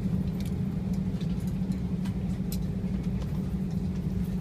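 Steady airliner cabin noise on the ground: an even low hum from the engines and air-conditioning, with a faint steady tone above it and a few faint clicks.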